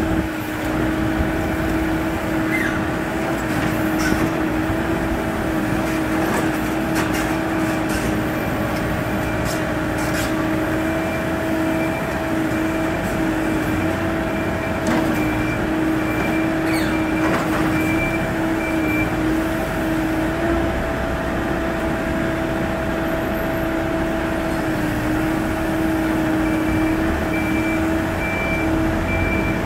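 Hidromek 102 S backhoe loader's diesel engine idling with a steady hum. A faint, evenly pulsed high beeping comes and goes, and there are scattered sharp clicks and scrapes.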